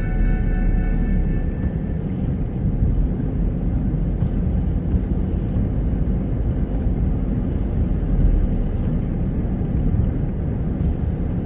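Steady low rumble of a car driving, the road and engine noise heard from inside the cabin. Music fades out in about the first two seconds.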